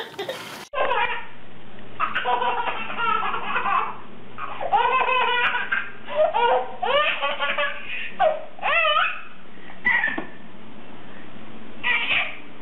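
A baby laughing hard in repeated bursts of high-pitched belly laughs and giggles, with short pauses between the fits.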